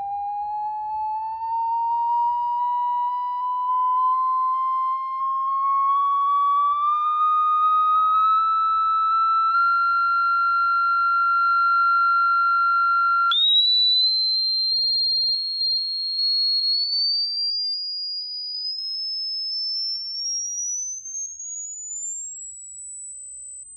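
Sine-wave test tone from a smartphone frequency generator app, played through the phone's speaker. Its pitch glides upward in small steps, holds, then leaps abruptly much higher about halfway through and climbs on to a piercing high pitch, growing fainter near the end.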